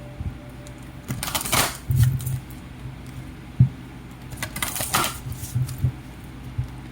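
Tarot cards being handled: two short rustling shuffles of the deck, a few seconds apart, with a few soft knocks in between.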